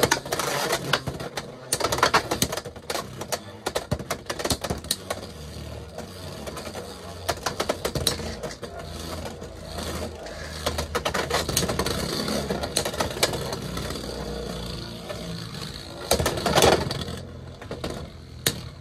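Two Beyblade X tops, Tyranno Beat 4-80 Rush and Knight Mail 9-60 Free Ball, spinning in a plastic stadium: a steady whirring rattle of their tips on the floor. There are rapid clicking collisions in the first few seconds and another flurry of hits about 16 seconds in.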